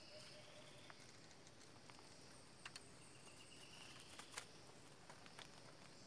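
Near silence: faint forest background with thin, steady high-pitched tones and a few soft clicks, the loudest about four and a half seconds in.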